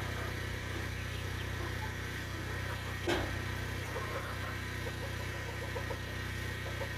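Electric fan running with a steady low hum, and a single knock about three seconds in.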